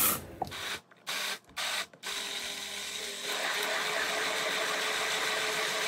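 Stick blender running in a plastic beaker, pureeing cucumber with a little oil. The motor starts about two seconds in, runs steadily and gets louder a little past the three-second mark.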